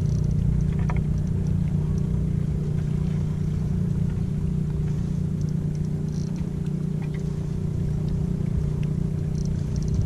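An engine running steadily: a low, even drone that holds one pitch throughout.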